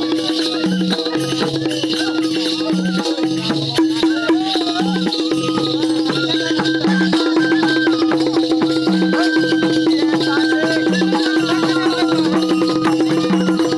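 Live Bundeli Rai folk dance music: a constant drone and a wavering higher melody over a low drum pattern that repeats about every two seconds, with dense jingling percussion throughout.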